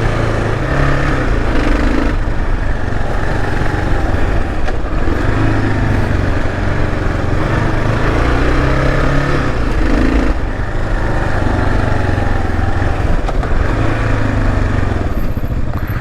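Kawasaki KLR 650 single-cylinder engine running under riding load on a dirt trail, its revs rising and falling repeatedly as the throttle is worked.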